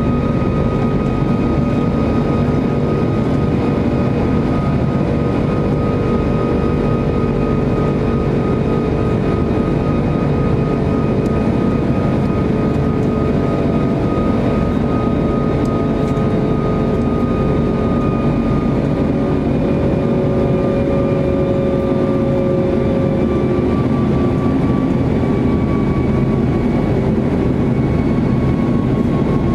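Airbus A340-600 cabin noise in the climb after take-off: a steady drone from its four Rolls-Royce Trent 500 turbofans, with a high whine that slowly falls in pitch.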